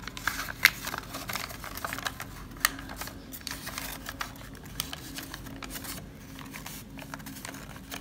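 White paper being folded and creased by hand into an origami bird: irregular crinkles and sharp crackles, thickest in the first few seconds and thinning toward the end.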